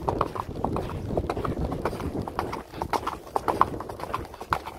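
Hoofbeats of a horse cantering on a dirt track: a quick, uneven run of clops.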